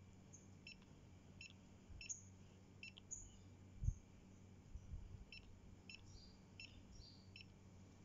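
Faint short high beeps, about eight in an irregular series, with a low knock about four seconds in.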